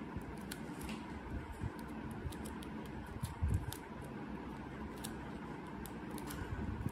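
White adhesive tape being folded and pressed between the fingers, giving scattered small crinkles and ticks, with one soft thump about three and a half seconds in.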